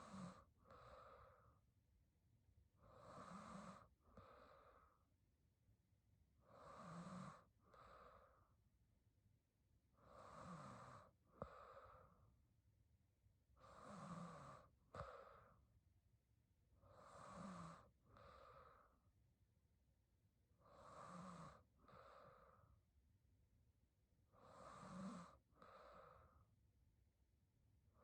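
A young woman snoring softly in sleep: slow, regular breaths about every three and a half seconds, each a longer snore followed by a shorter breath.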